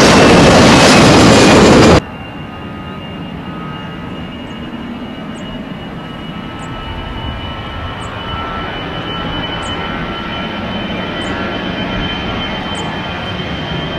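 Airbus A320-family jet climbing out after takeoff, a loud jet roar that cuts off abruptly about two seconds in. Then a second A320-family jet moving along the runway, its engines giving a steady high whine over a low rumble that slowly grows louder, with faint short chirps about once a second.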